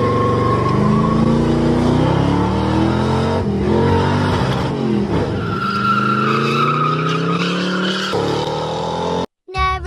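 A car engine revving hard under acceleration, its pitch climbing and falling repeatedly, with a steady high whine over it; the sound cuts off suddenly near the end.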